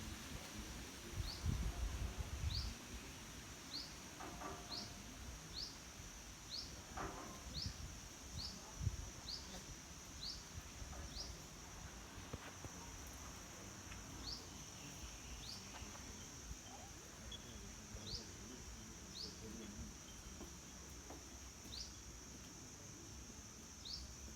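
Tropical outdoor ambience: a steady high insect drone, with a short, high, rising chirp repeated about once a second for the first ten seconds, then more sparsely. A few low rumbles in the first couple of seconds.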